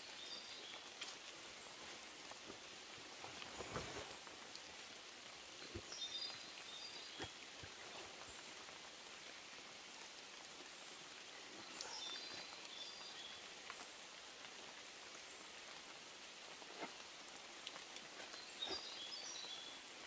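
Light drizzle falling in forest, with scattered drops ticking close by and one dull knock about four seconds in. A short high bird call of a few notes repeats about every six seconds.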